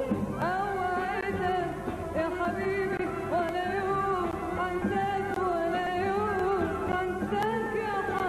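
A woman singing an Arabic song in long, wavering held notes over a live Arabic orchestra.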